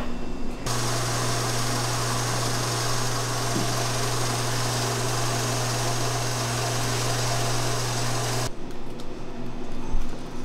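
Convection oven fan running with a steady low hum and hiss while macaron shells bake. It starts about a second in and cuts off suddenly near the end, leaving quieter kitchen sound.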